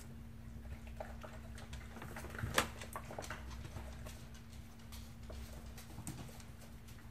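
Smooth Collie puppies' and a dog's claws clicking and pattering on a wooden floor as they move about, with one sharper knock about two and a half seconds in.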